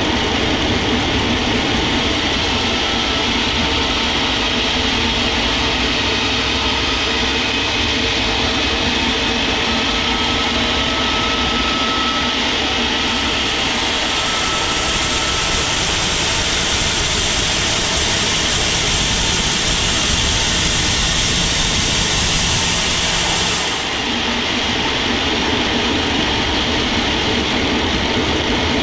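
Sawmill machinery running steadily. A high hiss joins about halfway through and cuts off suddenly.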